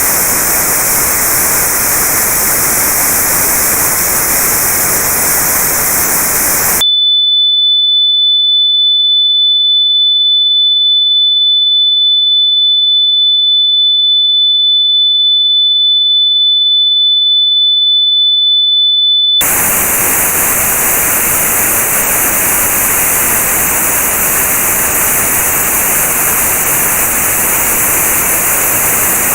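Notched white noise for tinnitus testing: a hiss with a band cut out at a high pitch. About seven seconds in it switches to a single steady high-pitched pure test tone at the pitch of that notch, held for about twelve seconds, then notched white noise returns with its gap set a little higher.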